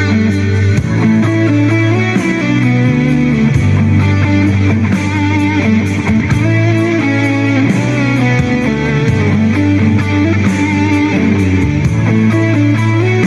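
Background music: an instrumental rock track led by electric guitar over sustained bass notes.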